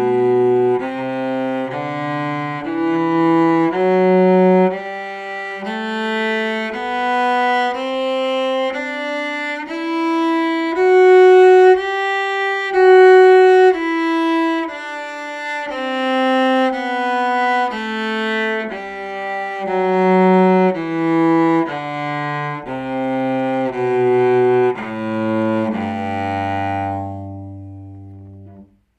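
Cello playing a G major scale over two octaves, one bowed note at a time at about a note a second: it climbs stepwise to the top G, then steps back down to the low open G string, which is held and left to ring out near the end.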